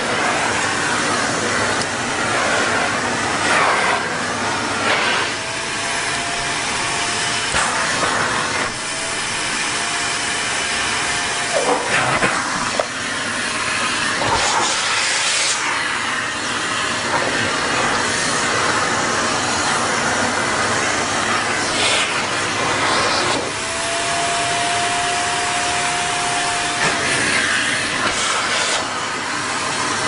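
Vacuum cleaner running steadily, its wand nozzle pressed against a cat's fur; a thin whistling tone comes and goes three times, and there are a few brief knocks.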